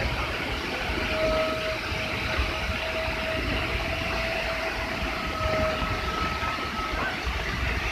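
Steady roar of a muddy flash-flood waterfall pounding down a cliff into clouds of spray. A faint, thin, steady whistle-like tone comes and goes behind it.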